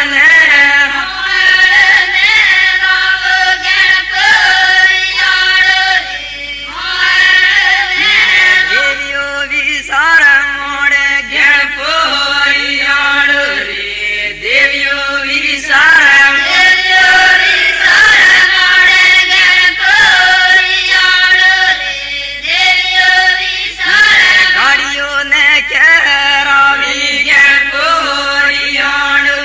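A group of women singing a traditional folk song together in chorus, loud and continuous, in phrases with short breaks between them.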